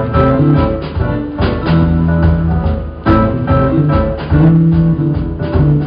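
Live band playing the instrumental intro of a pop song, guitar chords to the fore over bass and drums, with no singing yet.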